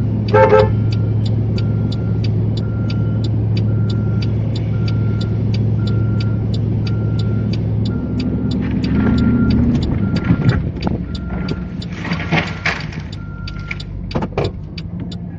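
Steady low engine hum with fast regular ticking and a repeating short beep, then from about eight seconds in several bursts of cracking and crashing as the rotten, hollow American elm falls and slices through a camper.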